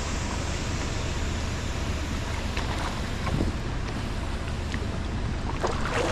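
Steady wind and moving-water noise on the microphone, with a few brief sharp sounds about three and a half seconds in and near the end.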